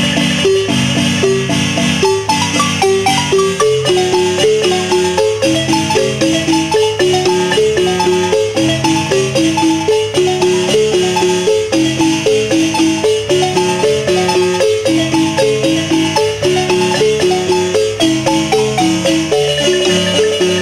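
Large wooden marimba with hanging wooden resonator boxes, played by several players with mallets: a son, with a melody of quick repeated notes over steady low bass notes in an even rhythm.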